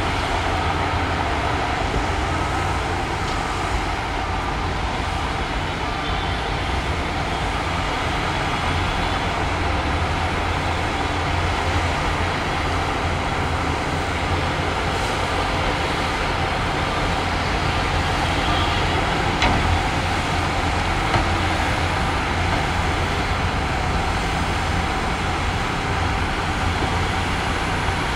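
Heavy diesel earthmoving machinery running steadily under work, a constant low engine drone with a broad rushing noise over it.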